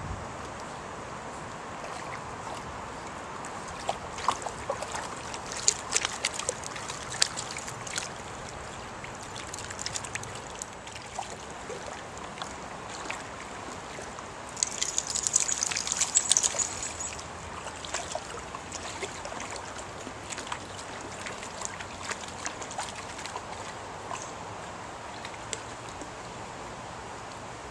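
Shallow stream water trickling steadily, broken by the splashes of a Schipperke dog paddling and wading through it: scattered sharp splashes, then a longer burst of splashing about halfway through.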